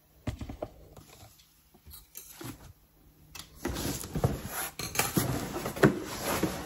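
Cardboard shipping box handled and its packing tape cut with scissors: a few light knocks at first, then from about three and a half seconds in a louder, continuous run of scraping and rustling with clicks.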